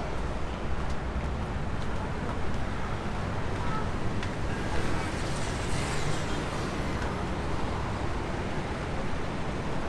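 Steady noise of busy highway traffic.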